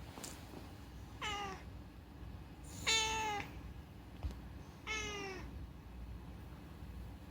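Domestic cat meowing three times, a couple of seconds apart, the middle meow the loudest; each short call dips slightly in pitch at its end.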